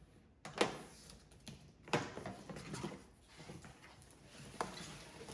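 Unpacking and handling of a boxed tool and its parts: three sharp knocks, about half a second, two seconds and four and a half seconds in, with light rustling between them.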